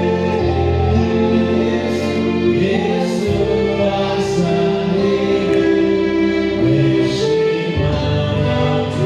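Gospel choir singing held notes over a sustained bass accompaniment.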